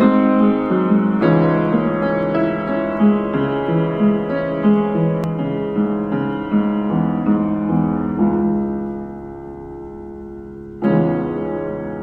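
Solo piano music playing a slow melody of single notes and chords. It grows softer about nine seconds in, then a new chord is struck near the end.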